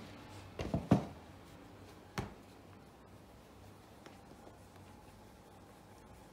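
A leather shoe toe being hand-polished to a mirror shine with a cloth wrapped over the fingers: three quick knocks about a second in and one more at about two seconds, then only faint soft rubbing.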